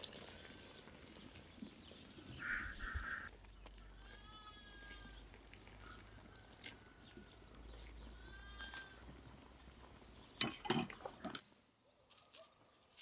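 A farm animal bleating in two short calls, about four and eight and a half seconds in. There is a brief burst of clattering clicks near the end.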